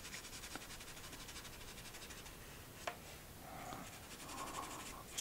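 Pencil scratching faintly on drawing paper in short shading strokes, with a small tap about three seconds in.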